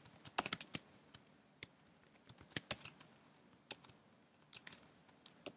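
Faint, irregular keystrokes on a computer keyboard while typing code, in short runs with pauses between.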